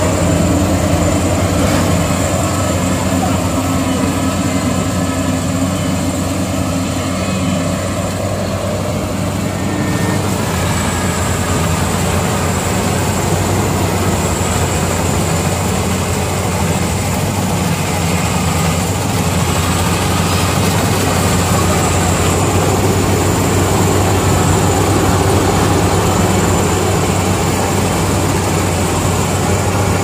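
Bimo Extreme rice combine harvester running steadily under load as it cuts and threshes ripe rice: its engine drone with a constant low hum, and the header and threshing works turning.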